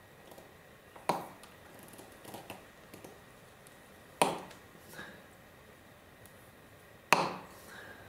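Three sharp knocks about three seconds apart as a metal tool works at a nail stuck in a truck tire's tread, with a few faint clicks between.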